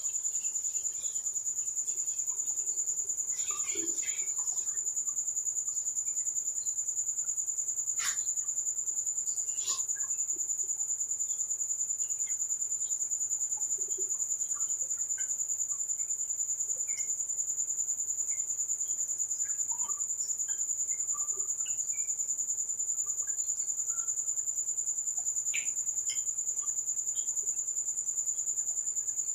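Crickets trilling steadily in one continuous high-pitched drone, with faint, scattered clicks and smacks of eating. A slightly louder click comes about 8 seconds in and another near 10 seconds.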